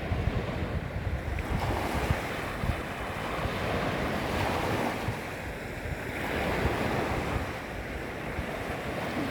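Small waves lapping and washing against the shoreline, swelling and ebbing every few seconds, with wind buffeting the microphone in low rumbles.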